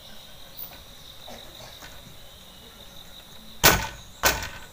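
Insects chirring steadily in the background, then two short, loud swishes about half a second apart near the end.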